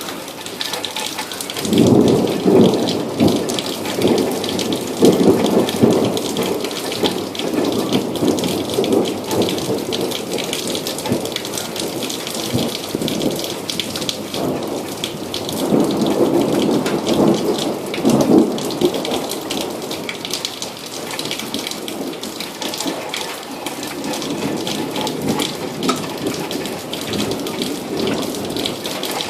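Rain falling steadily with rolling thunder: a long rumble begins about two seconds in and fades, and a second one rolls in around the middle.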